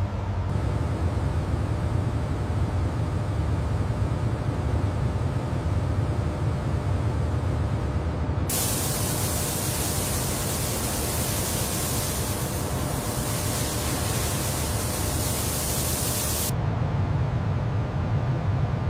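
A steady low machine hum. A loud, even spraying hiss starts suddenly about halfway through and cuts off sharply some eight seconds later.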